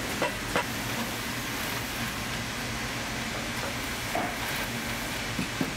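Steady mechanical hiss with a low hum, with a few light knocks: two near the start and two or three in the second half.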